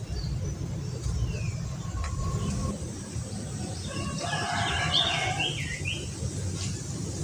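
A rooster crows about four seconds in, a call of a second and a half, with a few short bird chirps around it, over a steady low rumble.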